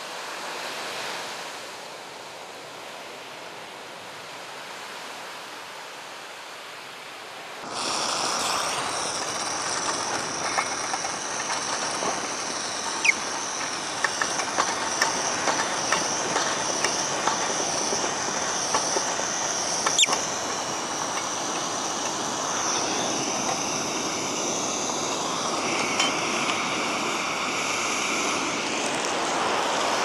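Sea waves washing on the shore, then, after a sudden cut, a Coleman Sportster II gasoline single burner running with a steady roaring hiss and scattered clicks and crackles; its tone shifts near the end as the flame is turned up. The owner says the burner is burning incompletely for lack of a windscreen.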